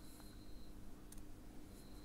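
A few faint, scattered light clicks of a diamond-painting pen handling round resin drills on the sticky canvas, over a faint steady hum.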